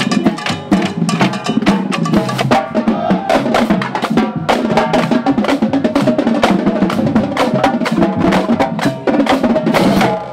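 Marching drumline playing a fast cadence on Pearl snare drums: rapid, crisp stick strokes and sharp rim clicks packed closely together.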